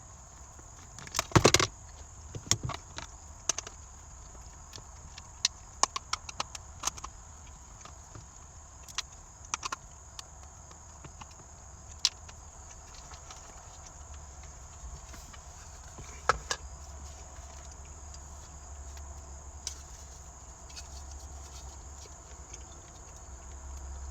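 Scattered sharp clicks and knocks of plastic interior trim being unclipped and handled as the shifter bezel trim is taken out, with the loudest cluster a little over a second in and single louder knocks around 12 and 16 seconds in.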